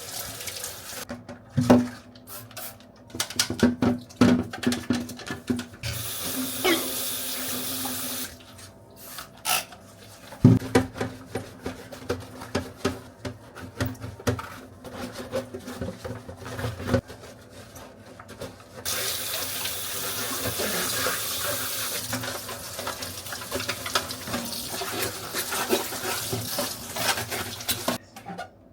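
Tap water running into a sink while things are washed, with plastic knocks and clatter as items are handled. The water runs briefly, then again steadily from about two-thirds of the way in until just before the end.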